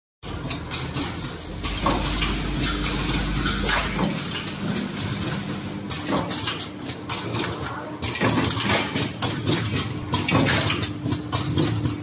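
Closed-end plastic zipper slider mounting machine running, its mechanism making rapid, irregular metallic clicking and clatter over a steady hum. A low rumble drops away about four seconds in.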